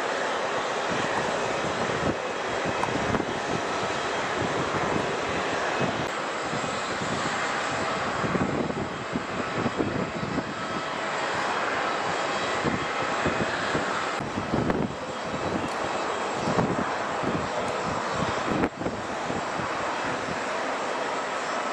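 Jet aircraft engines running at the airport: a steady, even noise with a faint high whine, and irregular gusts of wind buffeting the microphone.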